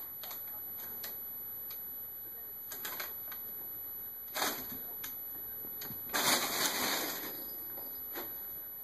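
Crumpled brown paper crinkling and rustling as a cat plays in it: scattered crackles, a sharper one about halfway, and a longer stretch of dense rustling about six seconds in.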